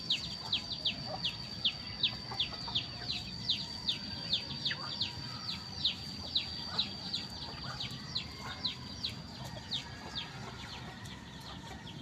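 Rapid high-pitched chirping: short falling chirps, about two or three a second, over a steady high whine. The chirps thin out near the end.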